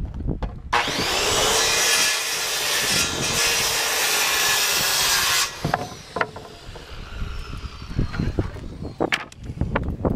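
Handheld circular saw cutting through a framing board for about five seconds, starting and stopping abruptly, followed by the knocks of wood pieces being handled.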